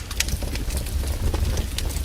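Campfire crackling: irregular sharp pops and snaps of burning wood over a steady low rumble.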